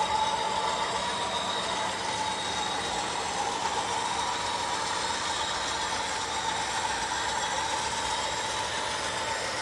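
OO gauge model freight train of Accurascale PTA bogie wagons running past on the layout track: a steady rolling rumble of wheels on rail with a steady high whine running through it.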